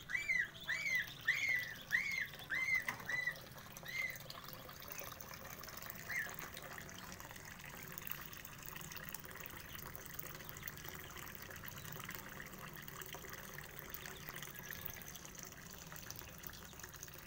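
Young Muscovy ducklings peeping: a quick run of high peeps, each rising and then falling, about two or three a second. The run thins out after about three seconds, with a single peep near four seconds and another near six. After that a steady low hiss fills the rest.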